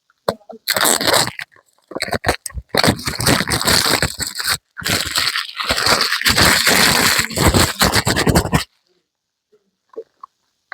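Packaging being opened by hand, a loud run of scraping, rustling and crackling with two short breaks, stopping abruptly near the end.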